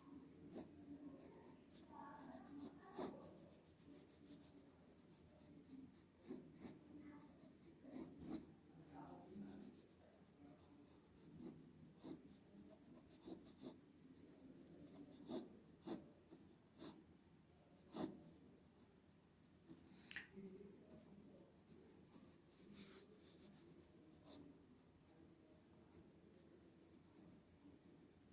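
Faint scratching of a drawing tool on paper in many short, repeated strokes, with a few light taps.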